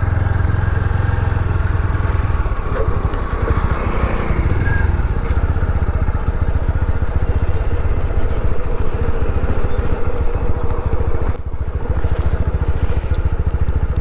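TVS Apache RTR 160's single-cylinder engine running steadily as the motorcycle rides slowly over a rutted dirt track, with a brief drop in the sound about eleven seconds in.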